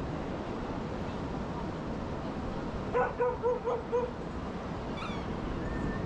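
A dog barking in a quick run of about five barks, about three seconds in, over the steady wash of ocean surf.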